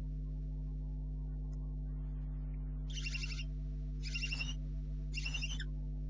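Barn owl giving three short, high calls about a second apart, each lasting about half a second, over a steady low electrical hum.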